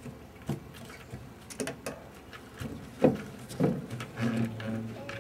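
Scattered knocks and thumps of children moving about on a wooden deck around metal patio furniture, the heaviest two about three seconds in, with a low hum near the end.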